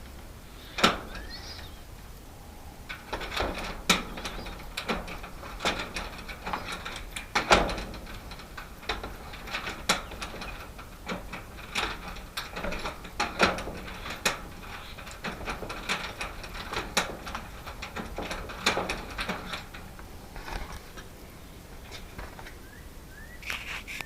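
Irregular clicks, taps and knocks of hand work on a screen door lock, with small metal parts and tools being handled.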